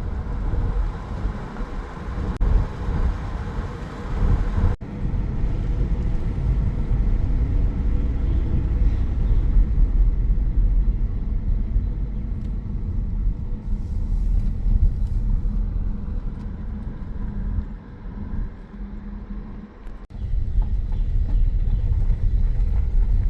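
Car driving, a steady road and engine rumble. It breaks off sharply twice, about five seconds in and near the end.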